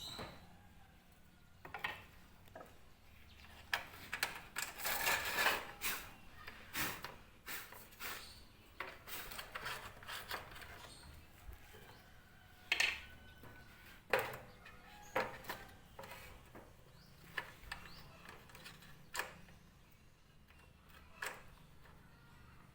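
Irregular knocks, clicks and scraping of wood and tools being handled, with a longer run of scraping about five seconds in and a few sharp knocks later on. No saw motor is running.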